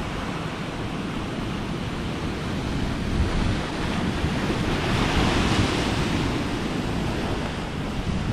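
Ocean surf breaking against a rocky shore, with one wave swelling and crashing about five seconds in. Wind buffets the microphone throughout.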